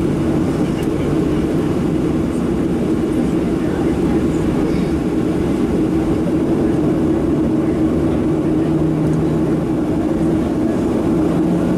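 Cabin noise of a Boeing 737-700 during taxi, its CFM56-7B jet engines running at low thrust: a steady, loud hum with a lower tone that comes in about eight seconds in, fades, and returns near the end.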